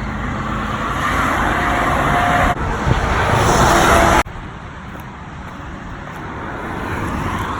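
Highway traffic noise: road vehicles going by at speed. The sound drops off abruptly about two and a half seconds in and again about four seconds in, then settles into a quieter, steady rush that slowly swells.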